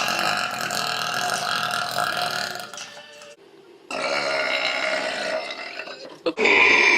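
Women burping: a long, drawn-out belch of about three seconds, a short break, a second long belch, and a louder one starting just before the end.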